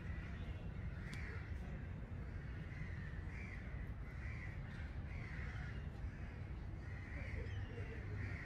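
Short bird calls repeated every second or so, about eight in all, over a steady low rumble.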